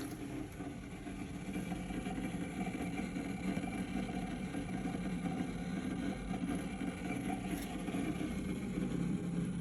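Steady mechanical hum with a fixed pitch from the rear of a Chevrolet Camaro SS, running on without a break, growing slightly louder. The owner suspects the fuel pump, which should run for only a second at unlock but keeps running as long as the ignition is in accessory.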